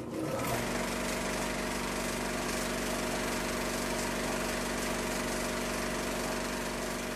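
A steady machine-like drone: a fast rattling texture over a few held low hums, unchanging in level throughout.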